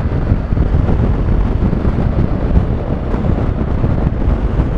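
Wind rushing over the microphone of a riding motorcycle at road speed, a steady low rumble of wind buffeting with the bike's engine and road noise underneath.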